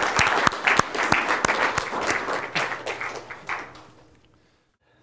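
Lecture-hall audience applauding, a dense patter of many hands clapping that fades away to near silence about four seconds in.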